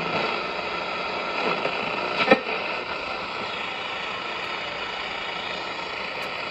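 Steady static hiss from a 1959 Trav-ler T-202 vacuum tube AM radio's speaker, with one short crackle about two seconds in.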